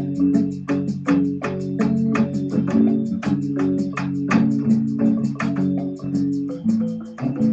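Casio electronic keyboard played freestyle: held chords and bass notes over a steady beat of short ticks, about four a second.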